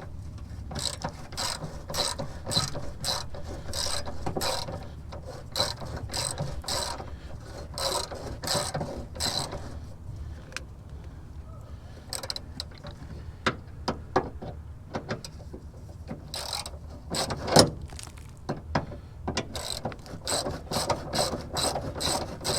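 Ratchet wrench clicking in repeated quick strokes as a rusted bolt is undone, with one sharper knock about three-quarters of the way through.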